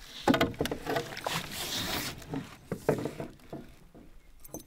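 Irregular splashing and sharp knocks on the canoe as a hooked lake trout is landed with a net beside the hull, with a burst of splashing about one and a half seconds in.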